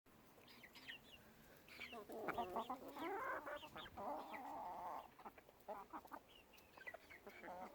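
Young chickens clucking and giving short, high, falling peeps, busiest in the middle of the stretch.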